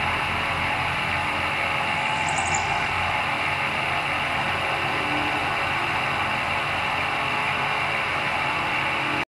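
Vertical milling machine spindle running at 660 RPM with a 3/8 inch end mill cutting a slot in a metal faceplate: a steady machining noise with a fast low rhythm underneath. It cuts off suddenly just before the end.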